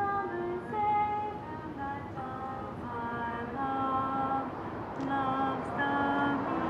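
A woman singing unaccompanied in slow, held notes, a recorded song cycle sounding in a city street, with a low hum of traffic beneath.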